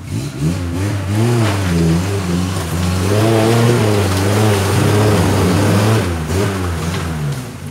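Off-road 4x4's engine revving hard under load as it climbs a steep riverbank, its pitch rising and falling again and again as the driver works the throttle; loudest in the middle of the climb and easing off near the end.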